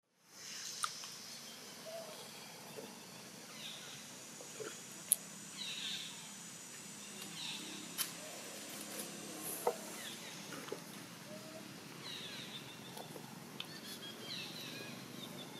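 Short, high squealing calls of long-tailed macaques that glide downward and come every couple of seconds, with a few sharp ticks, over a steady high hiss.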